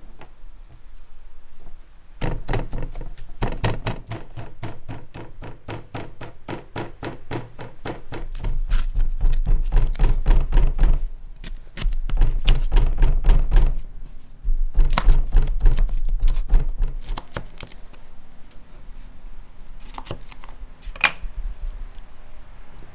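Knife chopping food on a wooden cutting board in quick, steady strokes, about three a second, with a couple of short pauses, then a few single cuts near the end.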